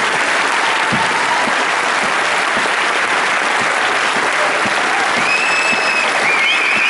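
Audience applauding steadily, a dense patter of many hands clapping, with a high cheer from the crowd about five seconds in.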